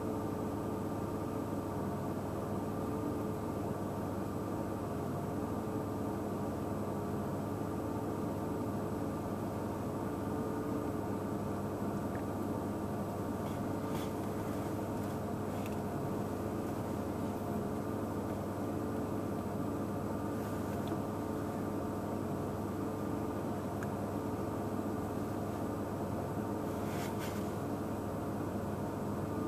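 A motor running steadily: a constant hum with several held tones, and a few faint ticks near the middle and end.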